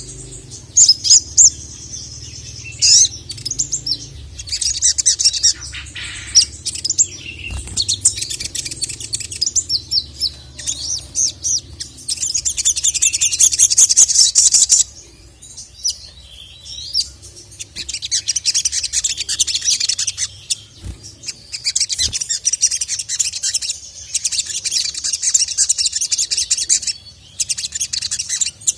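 Sogon (sogok ontong) sunbird singing energetically: rapid high chirping trills in phrases a few seconds long, broken by short pauses, over a faint low hum.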